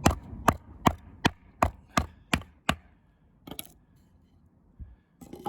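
Sand being compacted by hand for a paving-slab bed: eight quick, evenly spaced tamping knocks, then a few fainter, scattered knocks.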